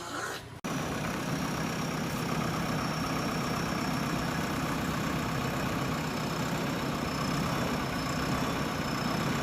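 JCB backhoe loader's diesel engine running steadily, starting suddenly just after a cut.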